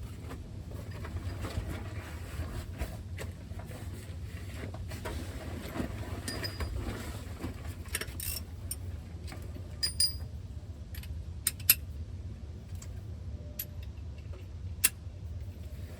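Metal hand tools clinking and scraping against metal while working on a truck's brake line fittings: scattered clicks, with a few sharp ringing clinks in the second half, over a steady low rumble.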